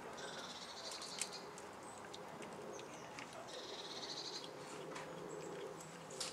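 A cat chewing a mouse, giving scattered sharp clicks and crunches, the strongest just after a second in and near the end. Behind it a small bird sings a short, rapid high trill twice, about three seconds apart.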